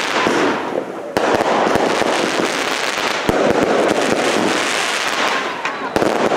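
A 'Fields of Fire' 100-shot compound cake firing. Three loud shots burst about two to three seconds apart, each followed by roughly two seconds of dense crackling that fades out.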